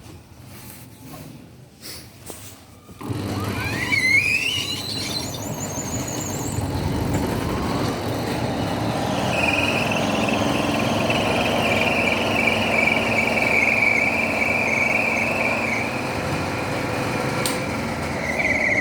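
Washing machine starting its spin: after a few clicks, the motor and drum start about three seconds in, with a whine rising in pitch as the drum speeds up. This settles into a steady high squeal over the running drum.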